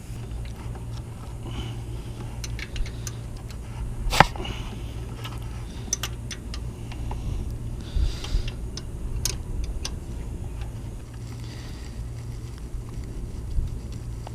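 Scattered clicks and knocks of hand tools against metal engine parts while tensioner bolts are worked loose, with one sharp click about four seconds in, over a steady low hum.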